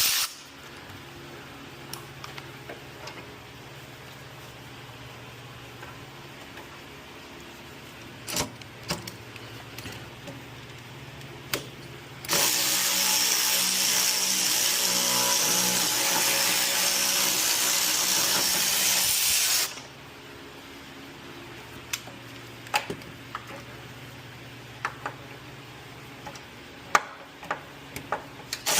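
A handheld power tool runs steadily for about seven seconds, starting about twelve seconds in, on the stabilizer bar link of a Honda CR-V's front suspension. Light clicks and knocks of hand tools come before and after it.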